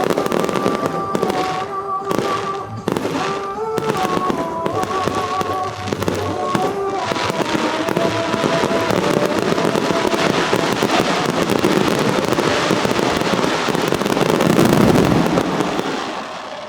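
Fireworks display: a run of sharp bangs from bursting shells over music with a melody, then a dense, continuous barrage that builds and dies away near the end.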